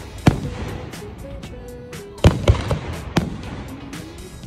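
Aerial firework shells bursting: one sharp bang, then about two seconds later three more in quick succession.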